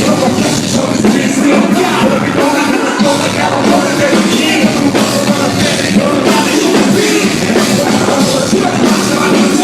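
Loud live rap-rock concert music through the venue's PA, with vocals over the beat.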